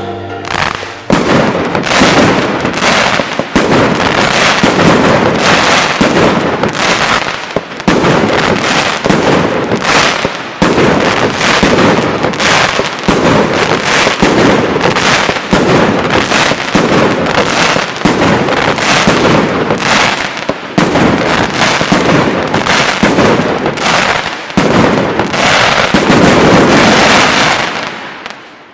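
Blackboxx Fireworks 'Snowballs' Category F3 firework battery firing: a fast, unbroken series of shots and bursts, several a second, that dies away near the end as the last shots go off.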